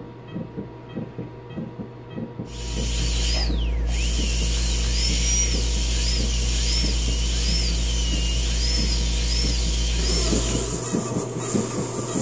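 High-speed dental handpiece (drill) running on a dog's tooth for about eight seconds, a loud steady hiss of air and water spray with a high whine that rises and falls over and over, starting about two and a half seconds in and cutting off near the end.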